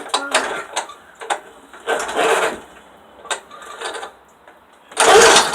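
Lawn mower's recoil starter being yanked, the rope whirring as the engine turns over without catching, about two seconds in and again, loudest, near the end, with clicks from the handle and mechanism between pulls. The engine cranks but will not fire.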